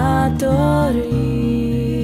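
Celtic folk ensemble music: a violin slides down and then holds one long note over a sustained low accompaniment.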